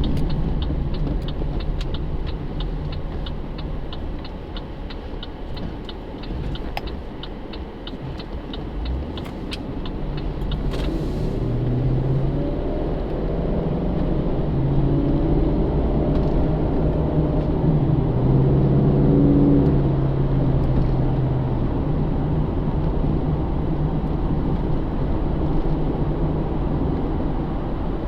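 Cabin sound of a 2009 Pontiac G8 GT's 6.0-litre V8 driving along, with steady engine and road rumble. A fast, regular light ticking, about four a second, runs through the first ten seconds or so. Near the middle the V8's note swells for several seconds under throttle, then settles back.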